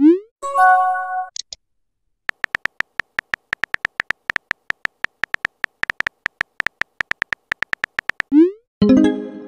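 Texting-app interface sounds: a quick rising pop as a message is sent, a short chime as a reply arrives, then a long even run of keyboard clicks, about seven a second. Another rising send pop and a fuller tone come near the end.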